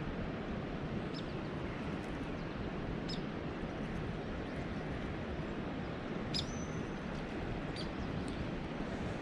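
Steady rush of a fast-moving river current, with a bird giving short high chirps every second or two, one of them drawn out into a brief whistle.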